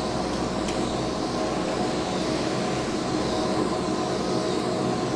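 Steady mechanical hum and rumble of a gondola cable car station's machinery as the cabins roll slowly through the boarding platform.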